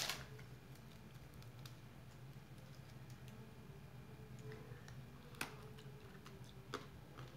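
Faint, scattered small clicks and ticks from fingers handling a lollipop, with two sharper clicks about five and a half and nearly seven seconds in, over a quiet room hum.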